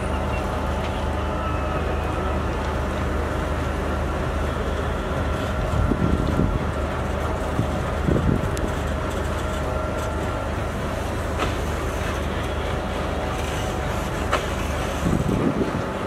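Diesel-electric locomotive of an intercity passenger train running steadily as the train departs: a continuous low engine drone, with a few short low thuds near the middle and near the end.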